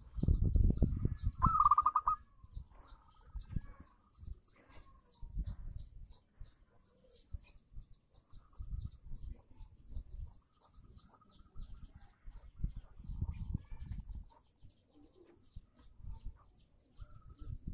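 Zebra dove cooing: a strong quick trilled call about two seconds in, then softer, fainter calls later. Irregular low rumbles and faint rapid high ticking run underneath.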